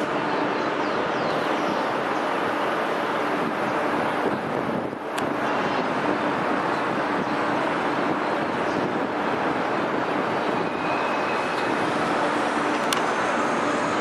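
Steady outdoor din of city traffic and port activity, even and continuous, with a brief dip about five seconds in and a single click near the end.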